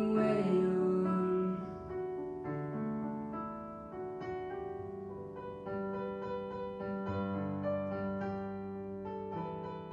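A girl's held sung note with vibrato fades out in the first second or so, and the piano accompaniment then plays a slow closing passage alone, sustained notes and chords.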